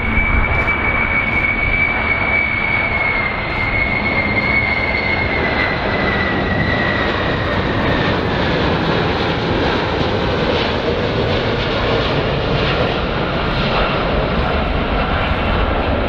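Four-engine Boeing 747 jets on landing approach: a steady, loud jet rumble with a high fan whine that slowly falls in pitch as the aircraft passes.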